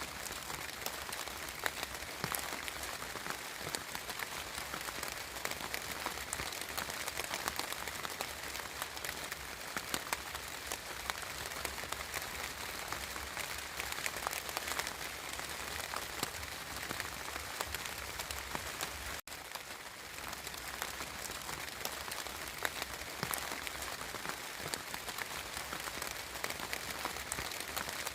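Steady spring rain falling, a dense even patter dotted with many individual drops ticking close by. The sound cuts out for a split second about two-thirds of the way through.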